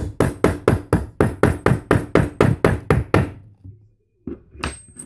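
Hammer striking a metal stamp to punch letters into an aluminium card: a rapid run of about fourteen blows, roughly four a second. After a short pause come two more blows near the end, the last leaving a brief high ring.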